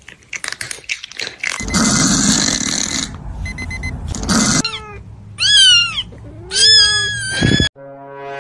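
Cat meowing loudly: a short falling cry, then two long meows about a second apart, the second drawn out. Before them, clatter and a loud noisy rush.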